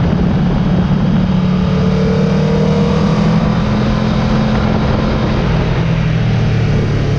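Aprilia RSV4 1100 Factory's V4 engine running steadily under power, with a slight rise in pitch about two seconds in, under heavy wind rush from riding at track speed.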